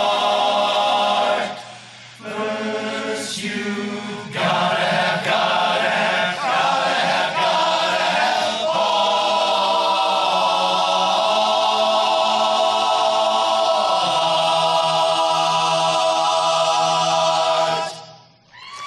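Barbershop chorus singing a cappella in close harmony through the song's final bars, ending on a long held chord that stops sharply near the end.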